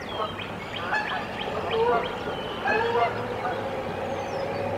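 A Canada goose and her newly hatched goslings calling on the nest: a string of short chirping calls, some falling in pitch, over a steady low hum.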